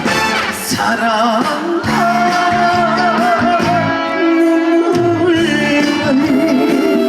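Live band playing the instrumental intro of a trot song through the stage sound system, with a wavering lead melody carried over the backing.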